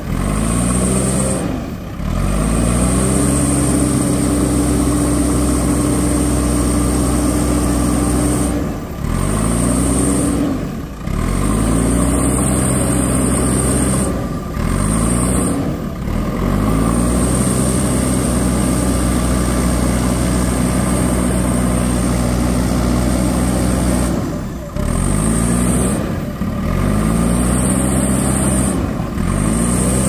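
JCB 3DX Eco Xpert backhoe loader's diesel engine running hard under digging load, its pitch dropping briefly several times and climbing back up each time, with a steady high whine above it.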